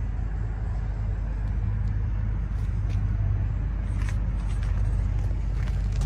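A 2015 Ram 2500's 6.7 L Cummins inline-six turbo diesel idling with a steady low rumble, a little louder toward the end.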